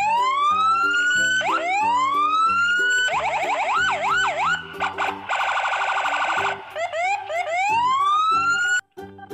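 Electronic police siren cycling through its tones: rising whoops, then a fast up-and-down yelp, then a rapid pulsing tone, then more rising whoops, before cutting off suddenly near the end.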